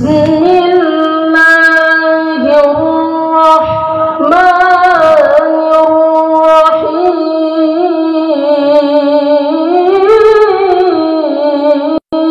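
A boy's voice in melodic Qur'an recitation (tilawah) through a microphone, holding long notes with wavering, ornamented turns. The pitch climbs about four seconds in and again near the end, and the sound cuts out for an instant just before the end.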